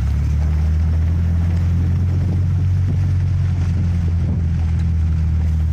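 Car driving, with a steady, loud low engine and road drone.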